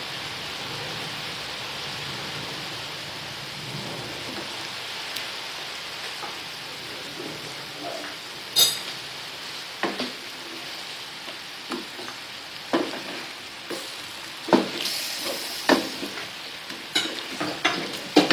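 Food sizzling in a frying pan, with a spatula knocking and scraping against the pan as it is stirred, the knocks coming every second or so from about halfway through.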